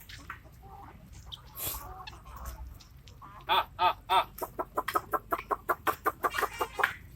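Country chicken clucking: a fast run of short, repeated calls starting about three and a half seconds in, a few loud ones and then about four or five a second.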